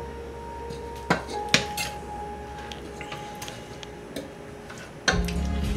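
A utensil clinking against the slow cooker's crock as pieces of cooked chicken curry are spooned in, with a few sharp clinks about a second in and a couple more later. Near the end a louder, steady low hum comes in.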